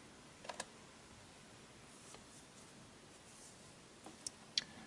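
A few small plastic clicks over quiet room tone: a pair about half a second in and two sharper ones near the end, from the controls of a Sony Video Walkman being pressed as it is powered up.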